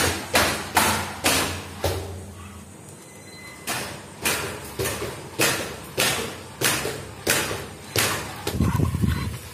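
A WLtoys 12402-A RC monster truck bumping down a staircase one step at a time, each drop onto the tiled step a sharp thud. The thuds come about every half second, stop for about two seconds, then resume at the same pace for about eight more.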